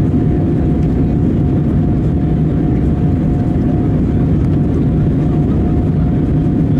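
Steady cabin noise inside an Airbus A320-214, its CFM56-5B engines and the airflow making an even low rush with a steady tone running through it.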